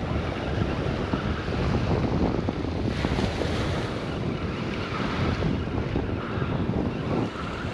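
Small waves washing onto a sandy beach, with wind buffeting the microphone.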